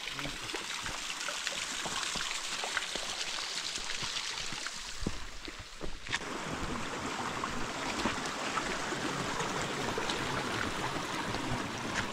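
Steady rushing noise of running water, with scattered light ticks. About six seconds in, the sound dips briefly, then comes back fuller and deeper.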